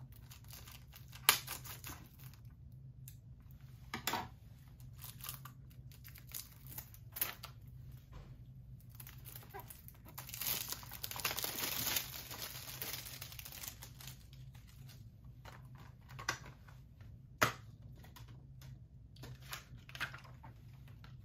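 Plastic shrink wrap being torn and peeled off a 4K Blu-ray case, crinkling, with a longer stretch of crinkling about ten seconds in. Scattered clicks and taps of the plastic case being handled, the loudest sharp ones about a second in and near the end.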